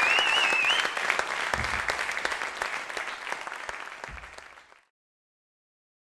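Concert audience applauding, with a high wavering whistle from the crowd in the first second. The applause fades away and stops a little before the end.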